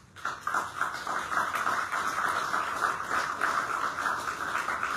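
Audience applauding: dense, irregular clapping that starts suddenly just after the start and keeps going.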